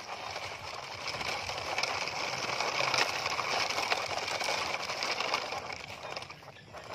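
Plastic toy dump trucks rolling over wet gravel: a steady crunching and rattling of wheels on small stones, easing off briefly near the end.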